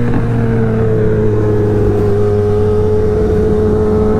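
Superbike engine running at steady revs under way, its pitch easing slightly downward; no gear change is heard.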